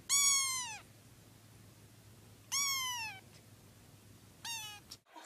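A kitten meowing three times, high-pitched calls that drop in pitch at the end; the first two are long and the last one is short.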